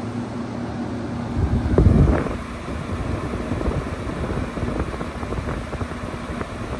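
2012 LG 6,000 BTU window air conditioner running on its highest fan speed with the compressor on, a steady hum. From about a second and a half in, wind noise buffets the microphone with a low rumble, loudest about two seconds in, then keeps up unevenly.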